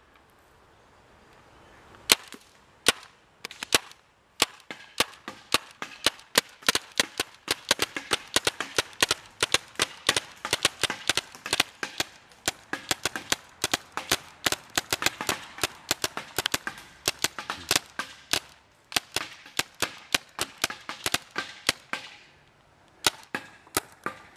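Paintball markers firing: a few single shots, then a long run of rapid, uneven shots, several a second at the busiest, thinning out near the end.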